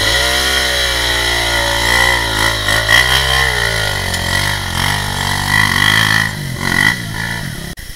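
Dirt bike engine revving up and down on a steep, rutted gully climb, its pitch rising and falling unevenly, then dropping away near the end.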